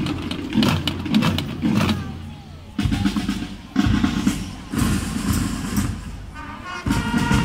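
Drum troupe playing traditional drums: a run of separate beats, a brief lull about two seconds in, then fuller drumming from about three seconds in.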